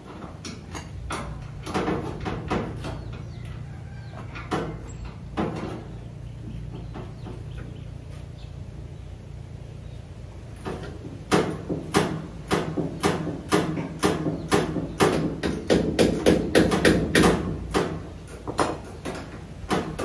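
Sharp knocks, scattered at first and then a quick run of about two a second in the second half, over a steady low hum.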